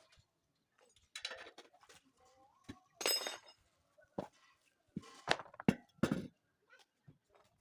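Metal clinks and knocks from hand tools and wheel parts being handled, one about three seconds in ringing briefly.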